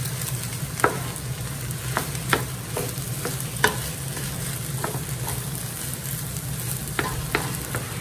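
Wooden spatula stirring fried rice in a nonstick frying pan, with irregular sharp knocks and scrapes of the spatula against the pan over a steady frying sizzle. A low steady hum runs underneath.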